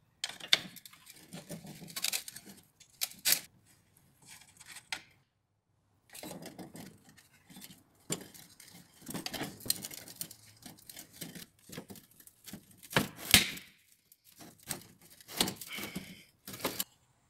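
Rusty steel parts of a vintage push reel mower clinking, scraping and clanking as it is taken apart by hand: a wrench working on the side-plate nuts, then the side plate pulled off the roller. Irregular knocks and scrapes with a short pause about five seconds in and one loudest clank about thirteen seconds in.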